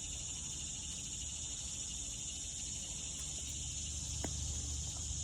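Insects chirring in a steady, high, continuous chorus over a low steady rumble, with one faint click about four seconds in.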